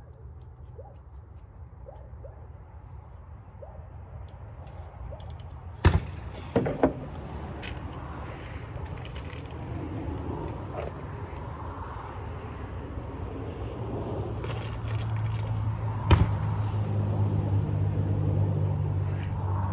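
Metal handling and scraping as a .45 muzzleloader is reloaded, with three sharp knocks close together about six seconds in and another near sixteen seconds. A steady low hum grows louder in the last few seconds.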